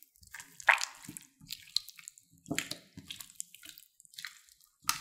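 Clear slime mixed with store-bought slime being pressed and kneaded by hand: irregular wet squelches with small pops and crackles of trapped air. Three louder squelches come about a second in, halfway through, and at the very end.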